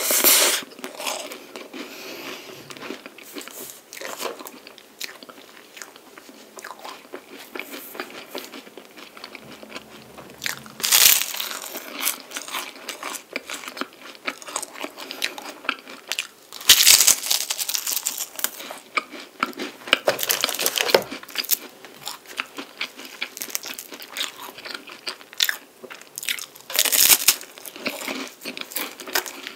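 Crisp, flaky puff pastry of a chocolate-coated palmier carré crunching as it is bitten and chewed, close to the microphone. There is a steady crackle of small crunches throughout, with about five louder crunching bites spread through.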